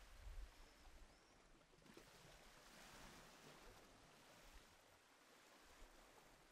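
Near silence: a faint, soft hiss that swells about two to three seconds in and then eases off, with a low rumble in the first half second.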